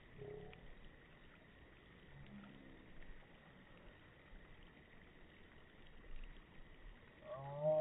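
Mostly quiet, with faint, distant children's voices; near the end a child's voice rises into a shout.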